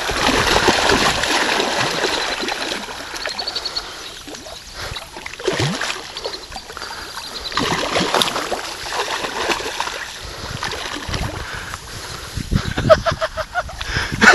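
Shallow water splashing and sloshing in uneven surges as a person wades through a flooded grassy field and grabs a carp by hand.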